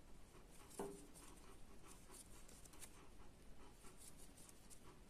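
Near silence with the faint scratching and ticking of a crochet hook drawing yarn through single crochet stitches, plus a brief soft sound about a second in.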